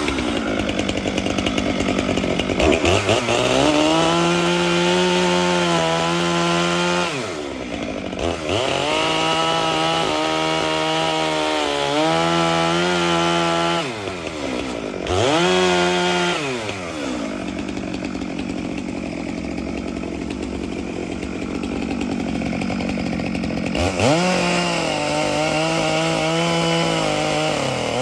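Chainsaw revving up to full speed and cutting wood several times, dropping back toward idle between cuts, as it cuts around nails buried in a walnut log.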